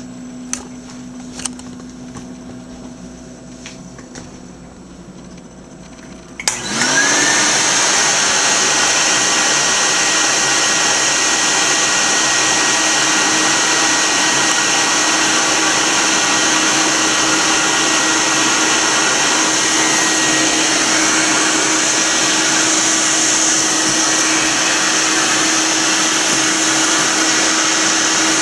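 Royal Deluxe model 931 metal-tank canister vacuum cleaner switched on with a click about six seconds in, its motor spinning up and then running steadily with a loud rushing whine. A few faint clicks come before it starts.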